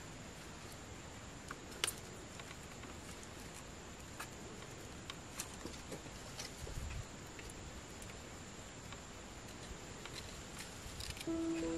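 Scattered light clicks and taps over a steady hiss with a thin high tone. There is a low thud around seven seconds in, and music comes in just before the end.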